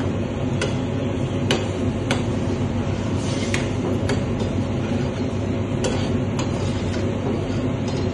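A metal spoon clinks sharply against a pan several times while stirring, over a steady low rumble.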